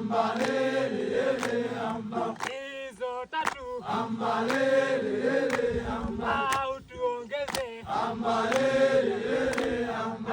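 A group of men chanting and singing together in Swahili, the call-and-response style of Kilimanjaro porters and guides, with sharp claps about once a second keeping the beat.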